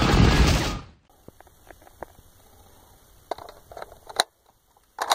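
A loud intro sound effect cuts off about a second in. Then a rifle is handled and readied, giving a series of sharp metallic clicks and clacks, with the loudest pair near the end.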